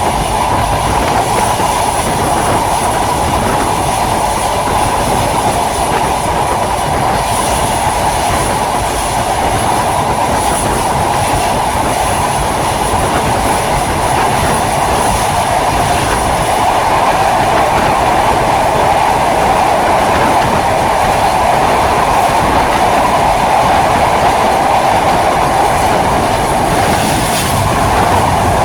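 Train running steadily on the rails: a continuous rumble of wheels on track with a steady ringing tone over it, a little louder from about halfway through.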